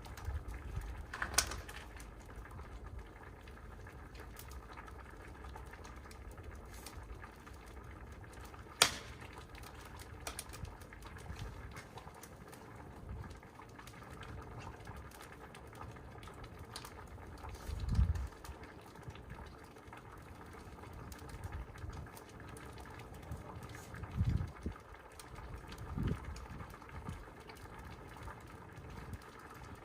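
Steady low rumble of wind buffeting the microphone, with two sharp clicks and a few dull low thumps.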